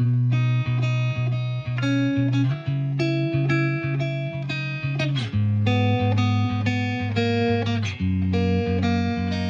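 Background music led by guitar: sustained chords with a held bass note, changing in a steady rhythm.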